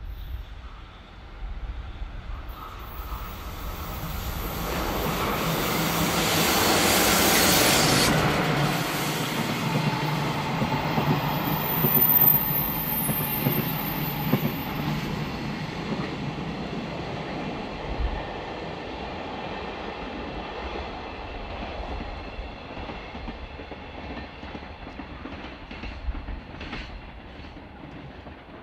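A JR Freight EF66 electric locomotive passes close, building to its loudest as it goes by. It is followed by the rolling rumble of container flatcars, most of them empty, with a few sharp rail-joint clacks and a brief high squeal of wheels near the middle. The sound fades as the train draws away.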